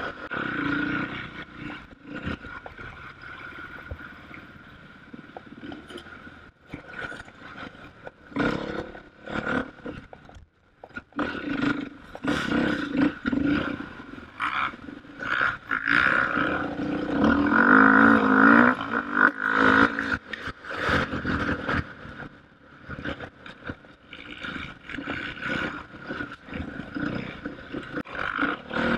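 KTM off-road motorcycle engine being ridden, its pitch and loudness rising and falling with the throttle and loudest about two-thirds of the way through. Short knocks and rattles come through the whole time.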